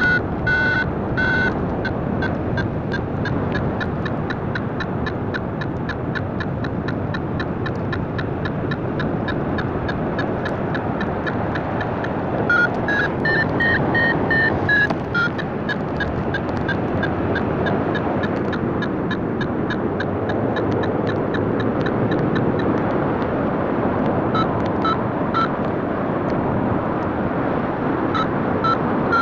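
Paragliding variometer beeping in a quick steady rhythm, about three beeps a second, over the rush of wind across the microphone. A little before halfway the beeps rise in pitch and grow louder for a few seconds, the vario's sign of stronger climb.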